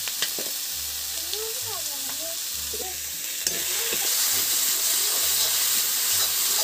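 Onion-tomato masala frying in hot oil in a kadhai, sizzling while a perforated metal ladle stirs it and scrapes across the pan. There is a sharp clink about halfway through, and after it the sizzle grows louder as the masala is turned.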